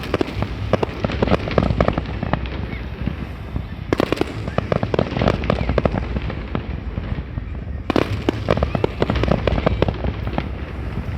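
Fireworks display: a dense run of bangs and crackling, with heavier volleys coming about every four seconds.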